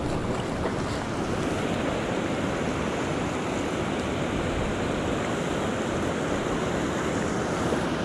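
Rushing water of a mountain stream, a steady even hiss.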